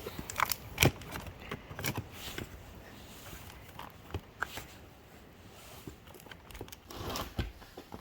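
Scattered rustling and scraping with a few sharp taps and knocks: plastic plant pots and potting soil being handled while tomato seedlings are transplanted. The sharpest knocks come about a second in and around two seconds, with another cluster near the end.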